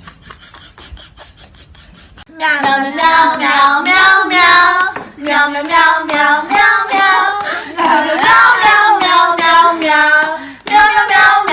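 A high voice singing without accompaniment, coming in loudly about two seconds in, in short rising and falling notes with a brief pause near the end.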